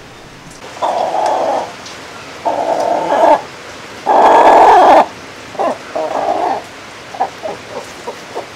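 Hen squawking while being handled: a series of loud, harsh calls, each about a second long, then a run of short clucks near the end.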